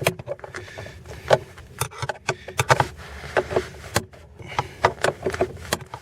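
Hands working at a car seat's mounting: a rapid, irregular string of light clicks, knocks and scrapes as a piece of raw rubber is pushed into a gap at the mount.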